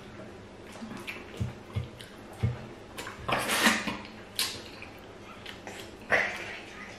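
Wet lip-smacking and chewing while eating fufu with soup by hand, a string of short, irregular smacks with a longer wet one about halfway through, along with the squelch of fingers working the fufu in the soup bowl.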